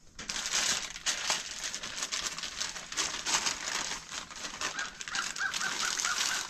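Thin plastic wrapping crinkling and rustling as it is pulled along and off a new wooden canoe paddle.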